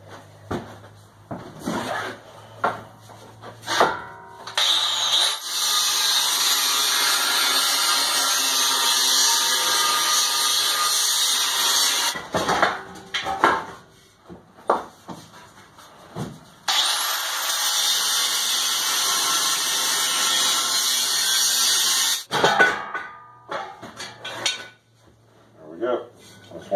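Handheld angle grinder cutting into the steel shell of an old air tank in two long runs of about six seconds each, each with a rising whine as it begins and each stopping abruptly. Short knocks and clatter of the metal being handled come between and around the runs.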